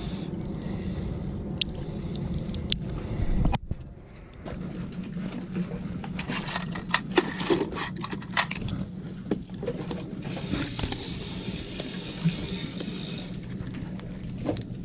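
Close-up handling of fishing tackle: small metal clicks and scrapes from multi-tool pliers and a hook as a broken hook is replaced. A loud bump comes about three and a half seconds in, over a steady low hum.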